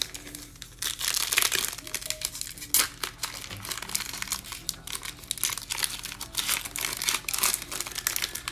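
Plastic trading-card pack wrapper being torn open and crinkled by hand: a dense run of crackling that starts about a second in.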